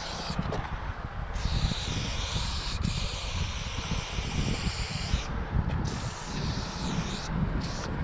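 Aerosol spray paint can hissing in about three long bursts of one to a few seconds each, with short breaks between, as a black outline is sprayed. A steady low rumble runs underneath.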